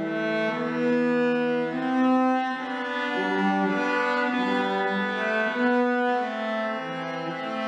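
Two cellos playing a bowed duet of a traditional tune, one part carrying the melody above a lower harmony line, in smoothly held notes of about half a second to a second each.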